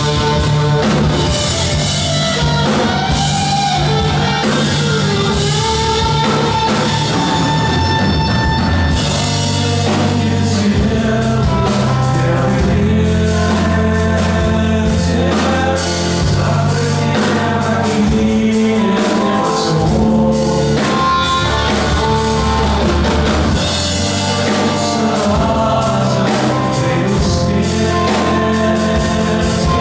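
Rock song with a male voice singing over bass, electric guitar and drum kit.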